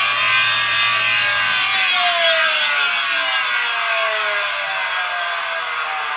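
Badly worn bearings in a Zirocco road dryer, grinding and rasping as the machine turns. Several whining tones fall slowly in pitch throughout, as the spinning part winds down.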